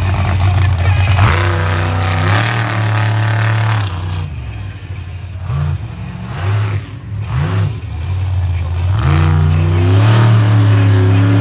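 A big vehicle engine running hard. It holds a loud, steady pitch for the first few seconds, then revs up and down several times in quick succession before settling back to a loud, steady run near the end.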